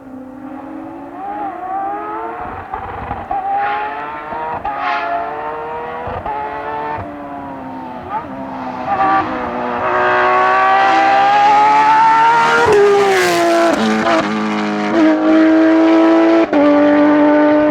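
Rally car engine revving hard through the gears as it comes along the stage, its pitch climbing and dropping back with each shift. It grows loud about ten seconds in as the car comes close.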